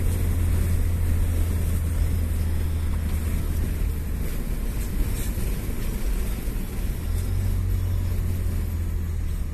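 Engine drone and road noise heard from inside a moving vehicle's cabin while cruising at steady speed: a strong low hum under an even rush of tyre and wind noise.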